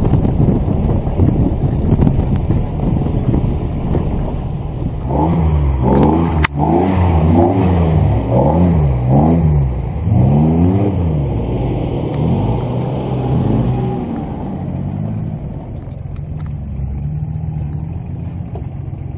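Off-road 4x4's engine: first a rough driving rumble, then revved up and down over and over for several seconds as the SUV works along a sandy gully, before settling to a steadier, lower note near the end.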